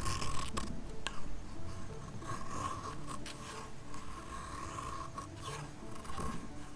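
Irregular scraping strokes of something rubbing on wood, with two sharp clicks about half a second and a second in.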